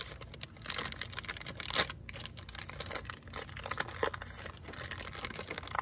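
Thin plastic gasket-kit bag crinkling and rustling as it is handled, in quick irregular crackles.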